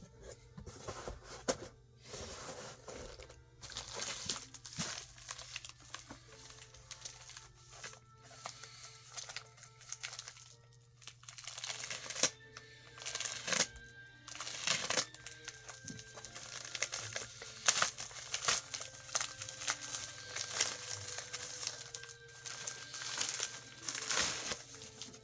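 Comics being handled, crinkling and rustling in irregular bursts, with music playing quietly underneath.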